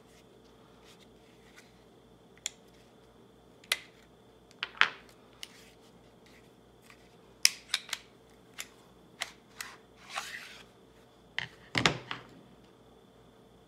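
Scattered metallic clicks and clacks of an FK Brno PSD pistol being field-stripped by hand, with a short sliding scrape about ten seconds in as the slide comes off the frame. It ends with the loudest sound, a heavier clatter with a low thump as a steel part is set down on the table.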